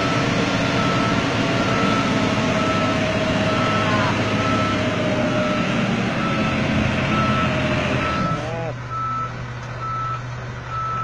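Dump truck's reversing alarm beeping about twice a second over its diesel engine running under load. The engine noise drops away sharply about eight seconds in, leaving the beeping over a low hum.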